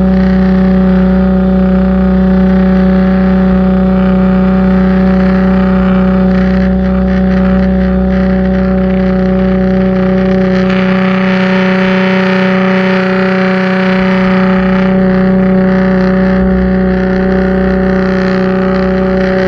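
Pressure washer running steadily with a constant motor hum, its water spray hissing and growing louder and rougher for a few seconds near the middle.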